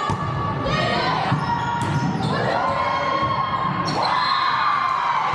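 Volleyball rally: the ball is hit with sharp smacks about three times, with girls' high-pitched calls and shouts between the hits, echoing in a large gym.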